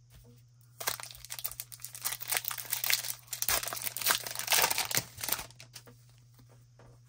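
Plastic wrapper of a hockey card pack being torn open and crinkled, a dense crackling that starts about a second in and lasts around four seconds before dying down to light handling.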